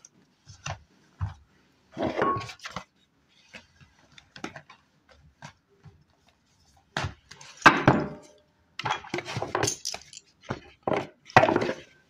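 Objects being handled and set down on a table: scattered knocks, rustles and clinks, with louder clusters about 2 seconds in and again from about 7 seconds on.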